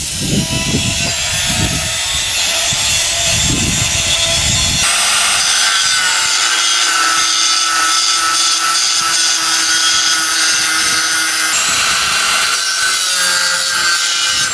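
Angle grinder with a thin cut-off disc cutting through steel square tubing, a steady, loud, high-pitched grinding. For the first five seconds it is heard from farther off with an uneven low rumble, then close up.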